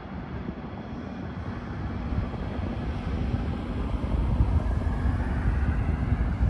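Tram running on the street track, a low rumble that grows steadily louder, with a faint steady hum.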